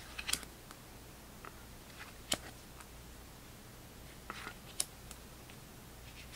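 Cardboard trading cards, some in stiff plastic sleeves, being slid and shuffled through by hand: a few soft, scattered clicks and rustles, the sharpest about two seconds in and again near five seconds.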